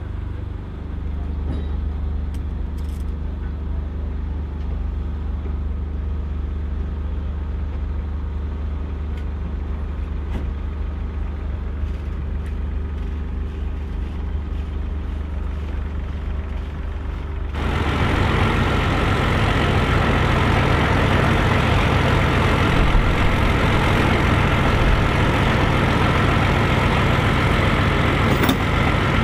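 Large diesel tractor engines idling with a steady low hum. About two-thirds of the way through, the sound jumps suddenly to a louder, fuller engine running.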